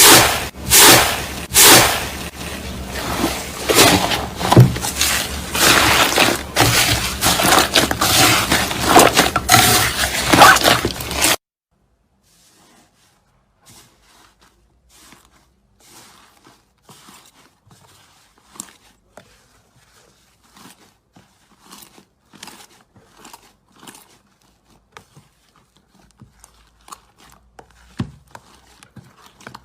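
Clear slime being squeezed and worked by hand, a dense run of wet clicks and pops. About eleven seconds in it drops suddenly to faint, scattered clicks.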